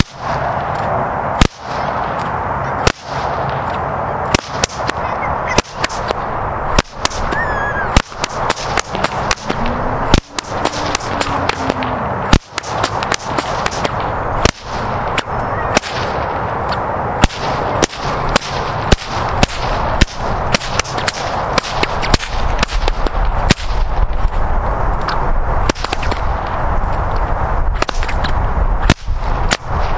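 Two whips cracked in a two-handed freestyle routine: dozens of sharp cracks at an irregular pace, often several in quick succession, over steady background noise.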